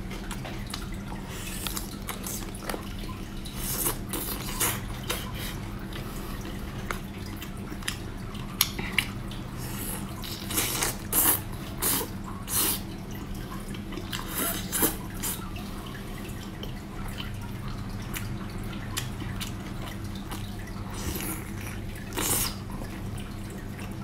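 Close-up wet eating sounds of a person biting and sucking meat off braised chicken wings: scattered lip smacks, slurps and squelches, bunched together about halfway through, over a steady low hum.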